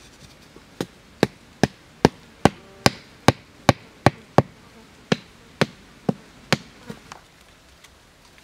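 A machete striking a wooden stick: a steady run of about fifteen sharp wooden knocks, roughly two and a half a second, with a short pause about halfway through.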